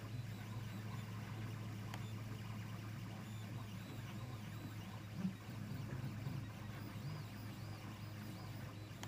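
3D printer running: a steady low hum with faint whirring pitch glides from its stepper motors as the print head moves, and one soft knock about five seconds in.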